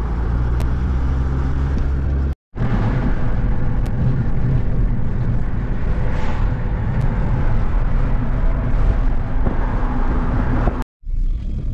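Car cabin noise while driving at highway speed: steady tyre and road noise with a low engine hum. The sound cuts out completely for a moment twice, about two and a half seconds in and near the end.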